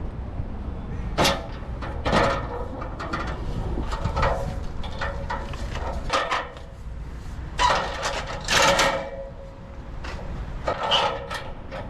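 Extension ladder being handled, clanking and rattling in a series of irregular knocks, some ringing briefly, over a steady low rumble.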